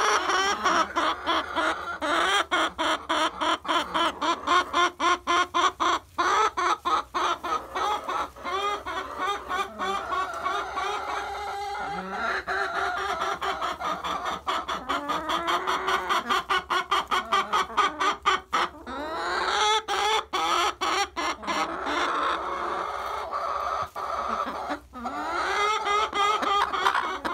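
Chickens clucking, with many overlapping calls throughout.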